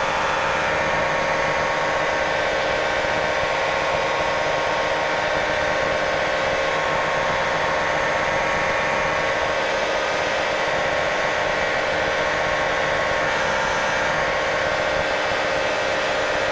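Light experimental aircraft's engine running steadily at high power through the takeoff roll and initial climb.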